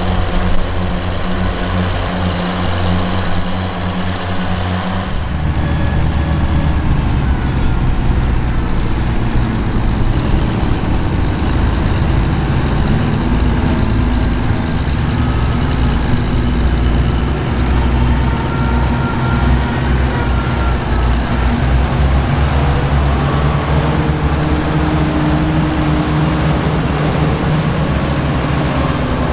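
Oliver 880 tandem tractors, two six-cylinder engines running steadily under load while pulling a moldboard plow. About five seconds in the sound changes abruptly, becoming fuller and slightly louder.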